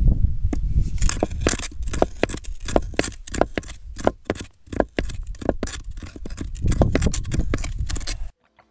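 Quartz being ground on an Andean batán: the oval stone hand piece rocked back and forth on the flat stone slab, a dense, irregular crunching and scraping of many small sharp cracks as the grains break. It stops abruptly near the end.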